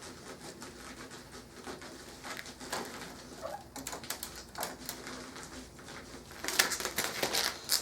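PC case packaging being handled and pulled from the box: scattered rustles, taps and scrapes of cardboard, foam and plastic, busier and louder in the last second or so.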